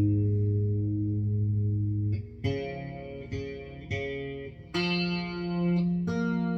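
Distorted electric guitar tuned down to A sharp standard, played through overdrive and distortion pedals. A low chord rings for about two seconds, three short chord stabs follow, then two longer chords ring out.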